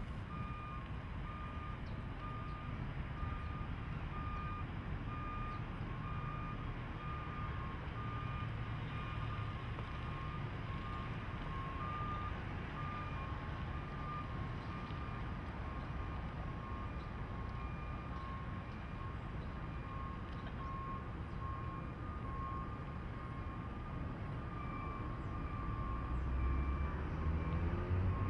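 Warning beeper of an autonomous 2000 Chevrolet Blazer sounding a steady repeating beep, the signal that the vehicle is in run mode under self-driving control, over the low hum of its engine and tyres. Near the end the engine gets louder, its pitch rising as the vehicle pulls away close by.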